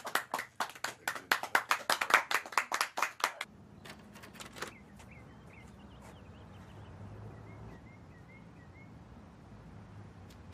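Rapid, irregular hand clapping for about three and a half seconds, stopping suddenly. Then a quiet, steady background with faint high chirps.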